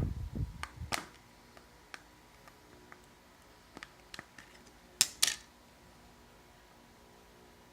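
Plastic back cover of a smartphone being pried off: a series of small clicks and snaps as its clips release, the loudest two close together about five seconds in.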